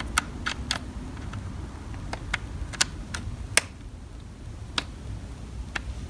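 Light, irregular clicks and ticks of a flat-head screwdriver working the slotted plastic end-cap lock on a Dyson DC24 brush-bar housing, turning it to lock the brush bar in. About ten clicks come at uneven intervals, the loudest a little past halfway.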